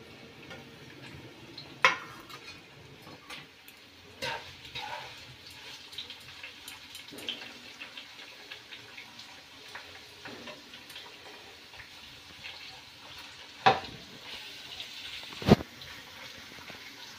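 Chopped onion and tomato shallow-frying in a nonstick kadhai with a faint, steady sizzle, stirred and scraped with metal utensils. A few sharp clinks of a steel utensil against the pan and plate cut through, about two and four seconds in and twice near the end, the last the loudest.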